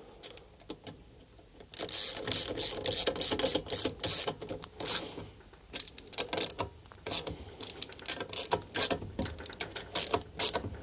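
Hand ratchet clicking in quick runs as the nuts on a Lambretta engine's bearing cover plate are tightened crosswise. The clicking starts about two seconds in, with a short pause midway.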